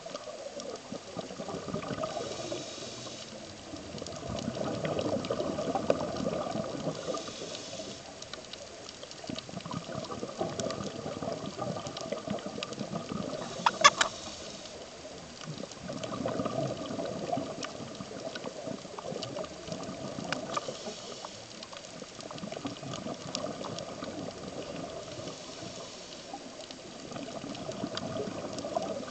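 A scuba diver breathing underwater through a regulator: a soft hiss on each inhale, then a long gush of exhaled bubbles, swelling and fading on a slow cycle of about ten seconds. A sharp double click about halfway through.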